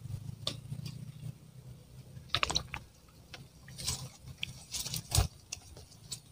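Close rustling, scraping and scattered clicks, with one heavier thump about five seconds in: handling noise from a fisherman moving about and handling his pole rod and line.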